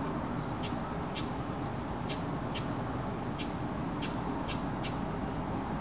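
A bird calling outside: short, sharp, high chirps repeated about twice a second, often in pairs, over a steady background hum.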